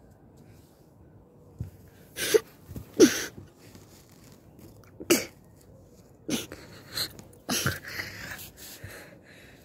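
A person's short, sharp, breathy vocal bursts, about six of them spread over several seconds, each dropping in pitch, like sneezes or forceful huffs.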